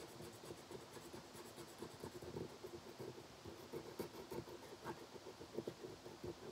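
Marker scribbling on a velvet colouring poster: a fast, irregular run of short strokes.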